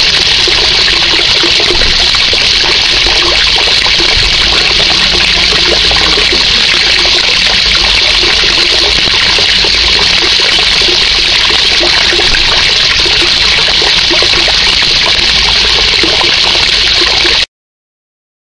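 A jet of water pouring from a pipe and splashing into a pool, a steady rushing splash that cuts off abruptly near the end.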